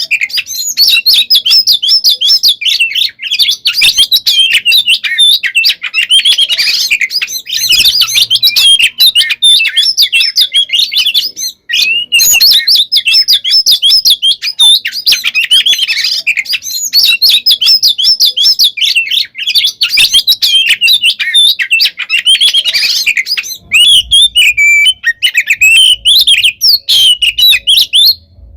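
Oriental magpie-robin (kacer) singing a loud, nonstop run of rapid, varied chirps and whistles, with only one brief break, thinning to fewer, more spaced whistles near the end. It is the excited fighting-mood song that keepers play to rouse other kacer.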